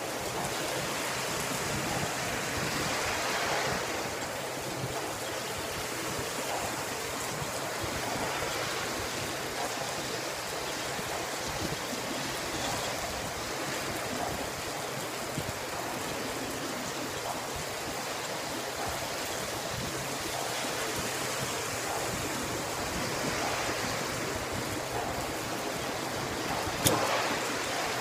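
Heavy rain pouring down in a steady hiss, with one sharp click near the end.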